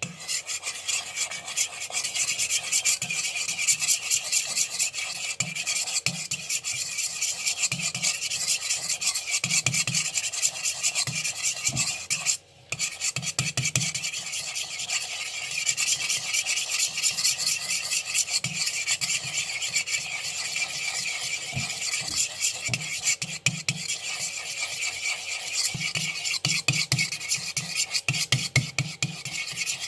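A utensil stirring glue mixed with green colouring in a bowl: continuous rapid scraping and rubbing, broken by a short pause about twelve seconds in.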